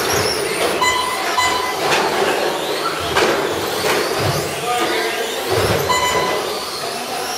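A pack of Traxxas Slash RC short-course trucks running on a carpet track: motor whine and tyre noise, with a few sharp knocks as trucks hit the track boards or land.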